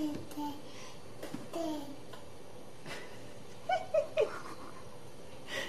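A baby babbling: a few short vocal sounds, then three short, high squeals in quick succession about four seconds in, each falling in pitch.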